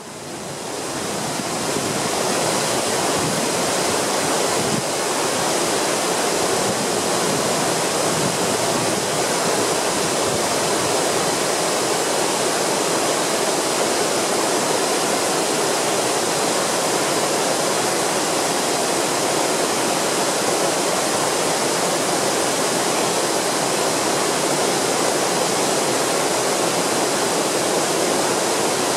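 Steady rushing of a waterfall about twenty-eight feet tall, white water falling over rock onto boulders and into a pool; it fades in over the first two seconds, then holds even.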